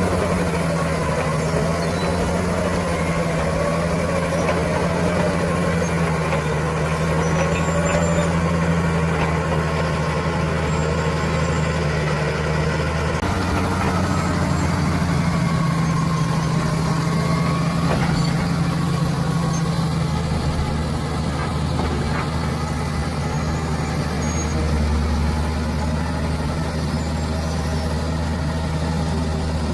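Bulldozer's diesel engine running steadily under working load, its pitch shifting a little now and then.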